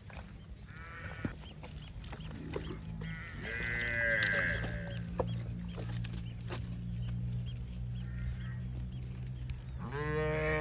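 Livestock calling: a long call that rises and falls in pitch about three seconds in and another near the end, with fainter calls between, over a steady low hum.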